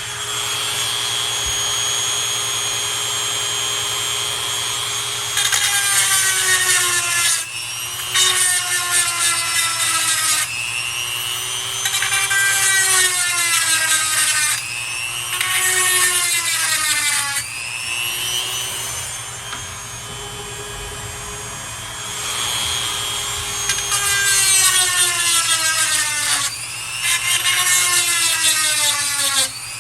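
Electric chainsaw sharpener's grinding wheel running and grinding the chain teeth. About eight times the grinding gets louder for a second or two as the wheel is pressed onto a tooth, and the motor's pitch sags under the load and comes back up as the wheel is lifted off.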